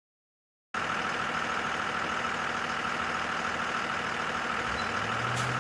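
Bus engine idling steadily, starting about a second in, with a deeper engine note coming in near the end.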